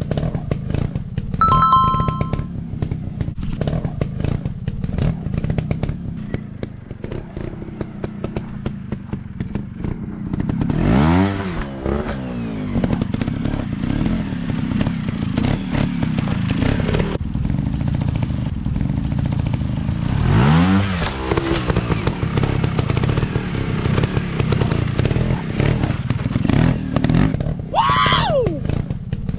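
Dirt bike engines running with a steady rattle, revved up and back down about a third of the way in and again about two-thirds of the way in, with a higher, quicker rev near the end.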